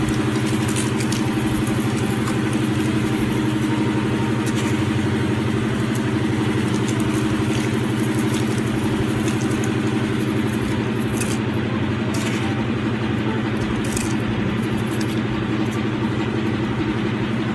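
A motor running steadily: an even, low buzzing drone at constant pitch, with a few faint light ticks over it in the second half.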